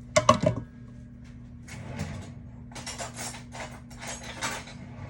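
Dishes and utensils clinking and knocking a few times, some with a short ring, then a run of short rasping noises as kitchenware is handled, over a steady low hum.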